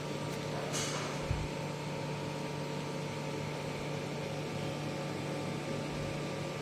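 Laser welding and cleaning machine running: a steady electrical hum with an even hiss, and a brief knock about a second in.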